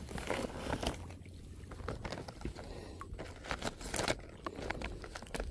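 Plastic bag crinkling and rustling in short, irregular crackles, with a steady low rumble underneath.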